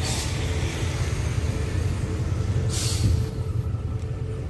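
Diesel locomotive of an approaching express train, a steady low rumble, with two short hisses: one at the start and a louder one about three seconds in.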